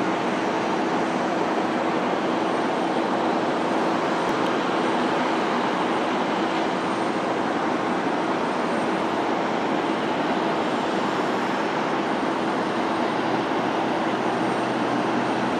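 Twin Pratt & Whitney PT6A-60A turboprops of a Beech Super King Air 350 at takeoff power during the takeoff roll, heard at a distance as a steady drone with a steady hum, growing slightly louder near the end.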